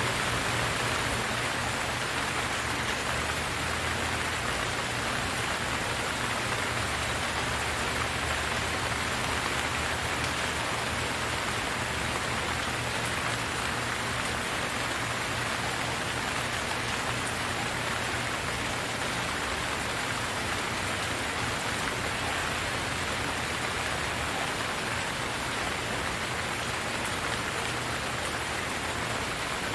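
Steady rainfall, an even hiss of rain pattering on a surface with no breaks or single loud drops.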